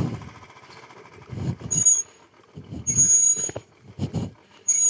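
Motorcycle brakes squealing three times in short, high-pitched bursts, the middle one the longest, each over a low rumble from the bike on the rough track. The rider puts the noise down to the brake pads.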